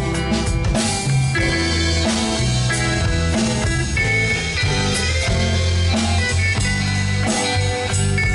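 Live rock band playing an instrumental: electric guitars over bass guitar and drum kit.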